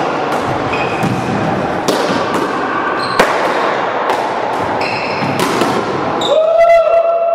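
Paddleball rally: sharp cracks of the ball off the paddles and the court walls, several seconds apart, echoing in the enclosed court. Short squeaks around the five-second mark and a loud held tone near the end that is the loudest sound.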